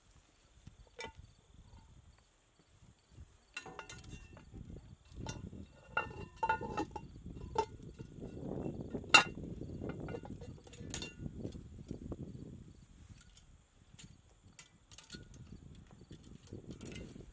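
Metal clinks and clanks as the cast-iron lid goes onto a hanging Dutch oven and the lid lifter and hanging chain are handled, the loudest a single sharp clank about nine seconds in.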